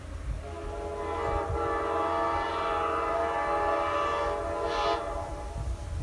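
Nathan K5LA five-chime locomotive air horn, a hybrid set with bells 1, 2, 3a, 4 and 5 off a MARC AEM-7, the #5 bell damaged. It sounds one long blast, several notes together as a chord, starting about half a second in and cutting off about five seconds in.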